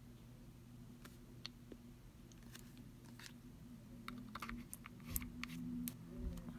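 Faint scattered clicks and taps of a small plastic acid dropper bottle being handled and recapped, with more of them in the second half, over a low steady hum.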